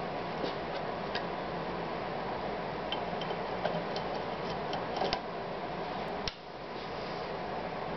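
Scattered light metallic clicks and taps as a steel starting crank handle is fitted to a model engine's crankshaft, over a steady background hum. The hum dips suddenly for a moment about six seconds in.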